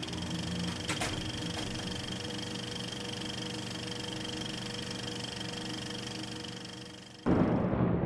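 Film projector running, a steady mechanical whir and clatter with a few sharp clicks near the start, then a sudden loud boom near the end.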